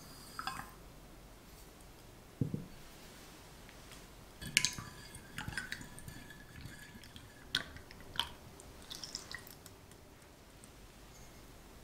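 Sugar poured into orange juice in a glass measuring jug, then stirred with a spatula. The liquid swishes softly, and the spatula clinks sharply against the glass a few times, with a short ringing.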